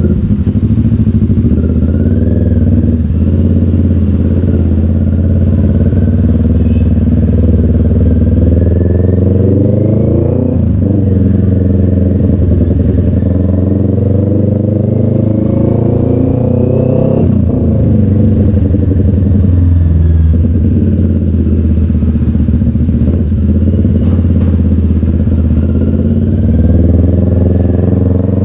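Motorcycle engine running under way in traffic, heard from the rider's seat. The revs rise and fall with the throttle, and twice, about ten and seventeen seconds in, they climb and then drop sharply, as at an upshift.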